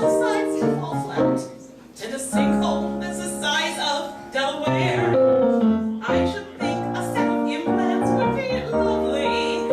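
A woman singing a comic cabaret song live, accompanied by piano.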